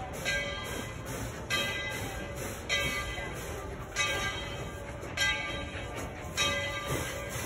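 Steam locomotive's bell ringing steadily, one clang about every 1.2 seconds, over a steady low background noise.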